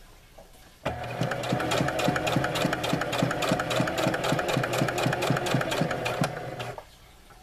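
Singer Heavy Duty electric sewing machine stitching through layered fabric: the motor runs steadily with an even ticking of the needle, about five stitches a second. It starts about a second in and stops near the end.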